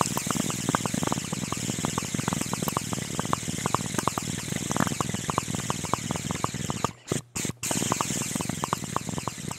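Dense crackling over a steady hiss, like the surface noise of old film or a worn record, with many irregular sharp clicks. The sound cuts out for an instant two or three times about seven seconds in.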